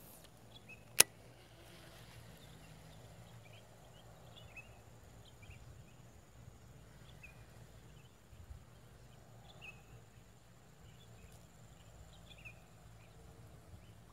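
Quiet outdoor ambience with faint, scattered short high chirps throughout, and one sharp click about a second in.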